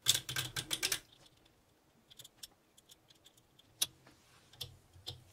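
Anet A8 3D printer's print-head carriage moved by hand along its steel rods on homemade metal bushings: a quick run of clicks and rattles in the first second, then scattered light clicks and taps.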